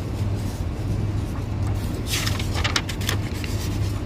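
Truck engine idling with a steady low hum, and a brief burst of paper rustling about two seconds in as the consignment slips are handled.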